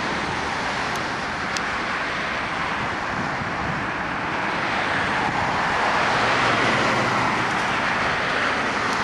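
Jet roar from an Air Canada Airbus A330's Rolls-Royce engines passing on approach, a steady rushing sound that swells to its loudest about six to seven seconds in.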